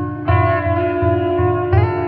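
Background music: held chords over a steady low beat. The chord changes about a quarter second in and again near the end.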